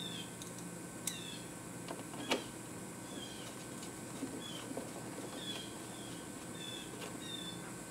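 Quiet screwdriver work on an electric unicycle's plastic cover as its screws are driven back in, with two sharp clicks about one and two seconds in. Short high chirps repeat every half second to a second throughout.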